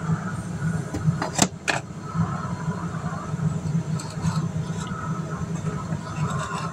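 Two sharp knocks about a second and a half in, as things are handled and pushed in under a shelf, over a steady background hum.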